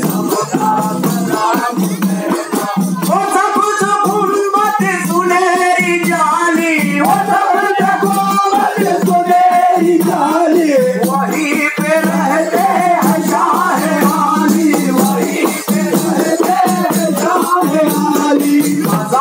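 A man's voice singing a devotional chant into a microphone, accompanied by daf frame drums struck in a steady rhythm with a rattling, jingling percussion. The voice glides through a wavering melody over a steady low hum.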